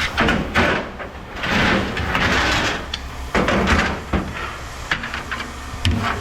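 Scrap metal clattering and scraping, with several sharp clanks, over a steady low machine hum.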